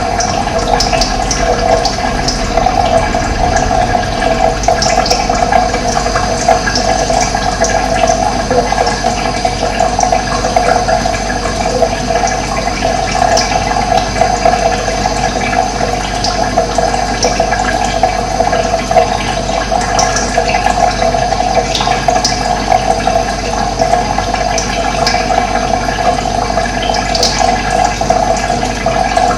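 Running water flowing steadily, with occasional short, high bird chirps over it.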